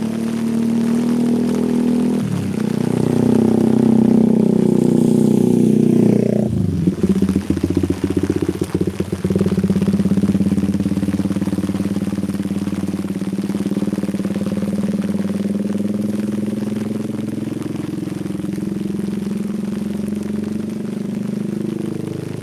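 Small motorcycle engine running at low revs, its pitch shifting about two seconds in and dropping sharply about six and a half seconds in, then running on steadily.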